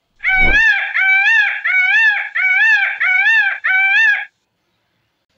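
Indian peafowl (peacock) calling: six loud calls in quick succession, each rising then falling in pitch, stopping about four seconds in. A brief low thump sounds with the first call.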